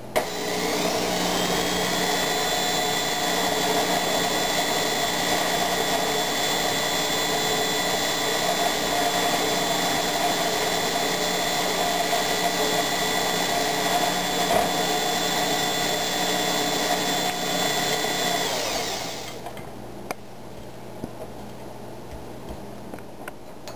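Electric stand mixer switched on, its motor speeding up over about a second to a steady whine as the twin beaters cream butter and sugar in a glass bowl. It winds down and stops about 19 seconds in, followed by a few light knocks.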